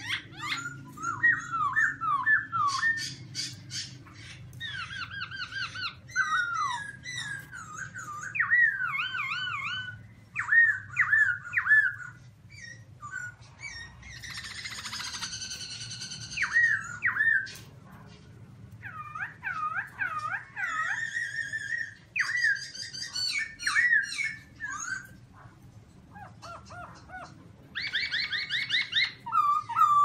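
Black-throated laughingthrush singing loudly: a long run of varied whistled phrases, each repeated several times in quick groups, with a harsher, raspy passage about halfway through.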